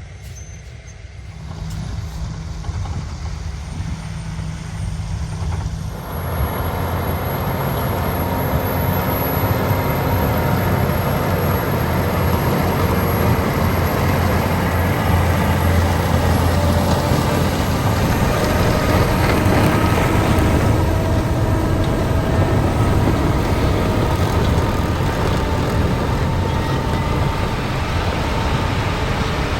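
Heavy diesel harvest machinery running steadily. It grows louder about six seconds in as it comes closer, then stays loud.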